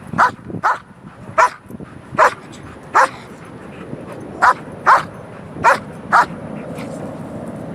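A dog barking in short single barks, about nine in the first six seconds, then steady background noise. It is barking on cue at a ball it wants and cannot reach.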